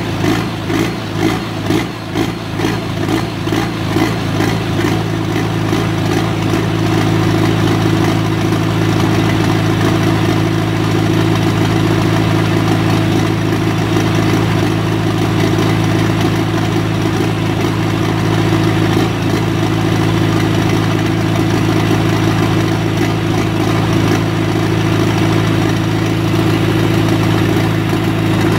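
John Deere pulling tractor's diesel engine running at idle through its open vertical exhaust stack. For the first few seconds the beat is uneven and pulsing, then it settles into a steady idle.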